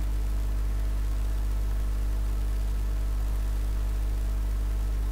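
Steady low hum with nothing else over it.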